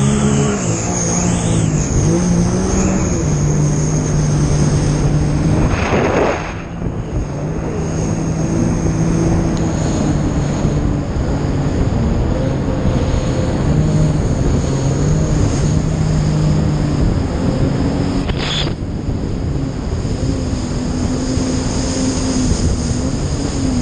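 Jet ski engine running under way, its pitch rising and falling with the throttle, over a constant rush of wind and water. Two short, loud rushes of noise come about six and nineteen seconds in.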